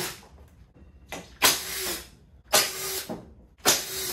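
A power tool running in short bursts, about one a second, as it backs out the 10 mm bolts holding the engine undertray.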